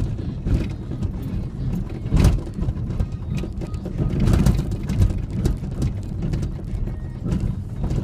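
2003 Ford Ranger 4x4 driving over rough off-road ground: a steady low rumble with irregular knocks and rattles as the truck bounces along.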